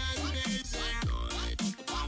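Electronic dance music with a deep bass and synth notes that slide down in pitch, repeating in a quick pattern.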